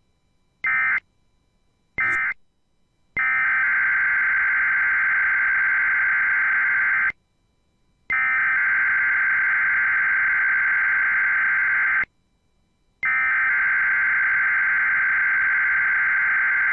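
NOAA Weather Radio SAME digital data bursts, a harsh buzzing warble. Three short end-of-message bursts close one broadcast, then a long header burst of about four seconds is sent three times, a second apart, opening the next weekly test.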